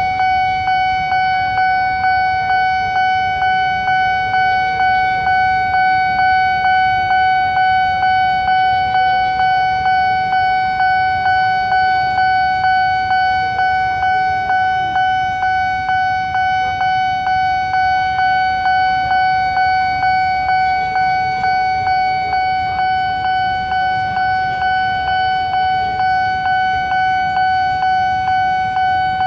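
Nippon Signal electronic railway-crossing alarm ringing: a steady high-pitched ding repeating evenly, more than once a second, with low traffic noise underneath. It is the warning that a train is due at the crossing while the barrier is down.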